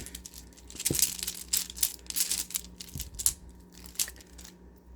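Plastic kandi beads clicking and rattling against each other as a beaded bracelet is handled: a quick run of small clicks and rustles, busiest in the first half.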